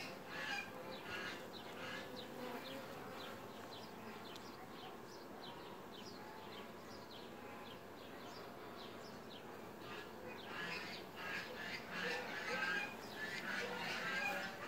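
Honeybees buzzing faintly around the hive entrances, with short high chirps repeating a few times a second over them.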